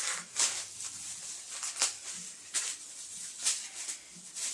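Thin plastic shopping bag crinkling and rustling in short irregular bursts as it is pulled and stretched on over the body.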